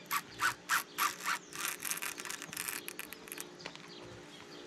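Baitcasting reel being cranked to wind in line: a rhythmic scraping whirr about three strokes a second. About a second and a half in the strokes quicken into a dense run, then fade near the end.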